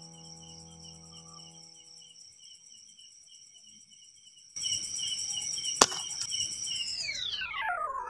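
Night insects chirping in a steady, pulsing high trill, with one sharp crack of an air rifle shot about six seconds in. Near the end the chirping slides down in pitch.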